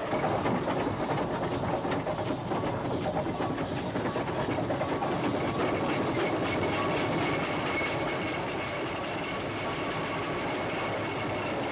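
Steam traction engine on the move, its exhaust beating in a quick, even rhythm.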